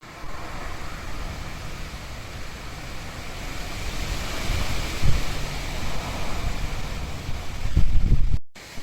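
Steady rushing outdoor noise with low wind gusts buffeting the microphone, strongest about five seconds in and again near the end, cut off abruptly just before the end.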